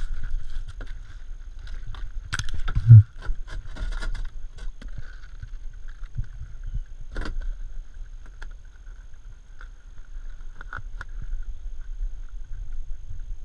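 Kayak being paddled: paddle strokes with scattered clicks and knocks against the hull over a low rumble, and one loud low thump about three seconds in.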